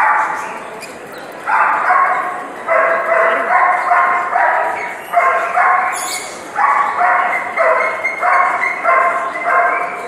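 Repeated loud animal calls, about two a second, each short and sharp at the start and fading quickly, with a brief pause about a second in.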